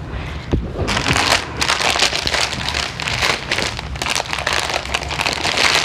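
Plastic crinkling and rustling as a rolled diamond painting canvas with its plastic cover is handled. It is a dense crackle that picks up about a second in and carries on.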